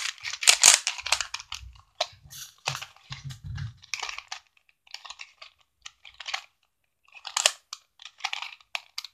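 A plastic Rubik's cube being twisted at random, its layers clicking and scraping as they turn: a dense run of clicks for about the first second and a half, then scattered short runs of clicks.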